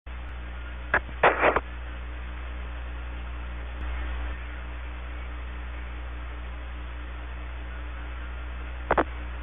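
Apollo 11 air-to-ground radio recording before Neil Armstrong speaks: a steady hum and hiss of the narrow radio channel, with short crackling bursts about a second in and again near the end.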